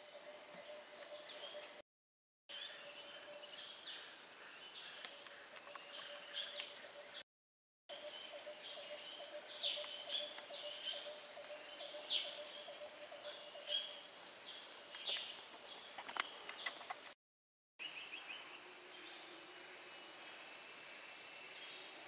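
Tropical rainforest ambience: a steady high-pitched insect drone with a fainter lower steady tone beneath it, and scattered short falling bird chirps, most of them in the middle stretch. The sound drops out briefly three times.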